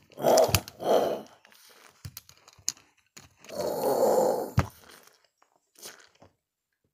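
A person making growling noises with the mouth for a toy animal fight: three rough bursts, two short ones at the start and a longer one of about a second near four seconds in. Light clicks of plastic animal figurines knocking together come in between.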